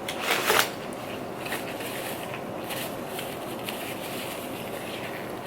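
Eating sounds: a few crisp crunches from a bite into fried food in the first moment, then soft, faint chewing ticks over a steady background hiss.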